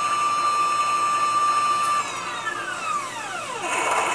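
CNC wire bender's drive motor bending 5/32 piano wire: a steady high whine, then about halfway through the pitch glides down as the motor slows to a stop near the end, and it starts rising again as the machine reverses to back off the bend.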